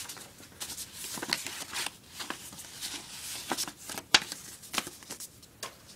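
Paper and card rustling and tapping as printed memorabilia and a black card folder of collector's cards are handled, with a sharper tap about four seconds in.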